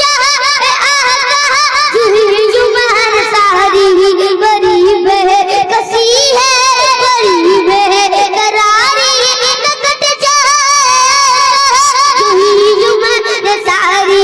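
A child singing a naat: a long, drawn-out ornamented passage with a fast wavering vibrato and sliding turns, without clear words.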